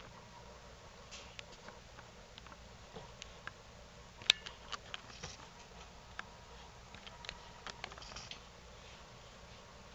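A tamandua's claws scratching and clicking on a carpeted cat tree as it climbs: faint scrabbling and scattered sharp clicks, with one louder click about four seconds in.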